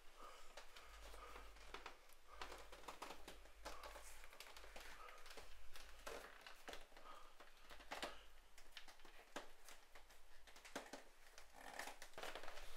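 Faint rustling and soft clicks of a person moving stealthily through a small room, scattered irregularly over a low hum.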